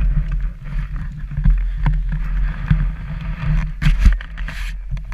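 Dirt bike engine running steadily at idle, a low rumble, with sharp knocks of the camera being handled.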